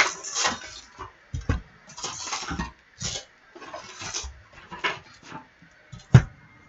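Sealed trading-card packs and a cardboard hobby box being handled and emptied: foil-wrapper rustles and scrapes, with a soft thump about one and a half seconds in and a sharper knock near the end.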